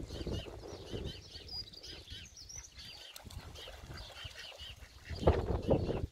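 A flock of domestic ducks and geese on a pond, calling with many short quacks and chatters throughout. A louder, low rush of noise comes near the end.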